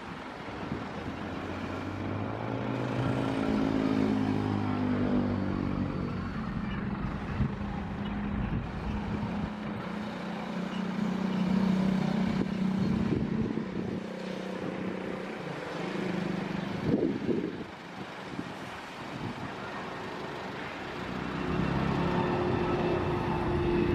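Airbus A330neo airliner's Rolls-Royce Trent 7000 jet engines at takeoff power through the takeoff roll and climb-out: a steady rumble with a droning whine. A motor vehicle passes close by a few seconds in, its pitch falling.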